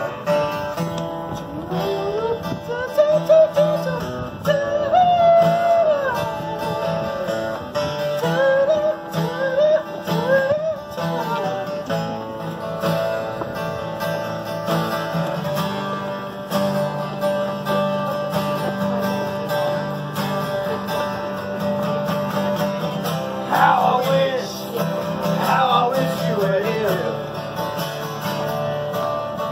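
Acoustic guitar played by a street musician, with a voice singing over it for the first ten seconds or so and again near the end.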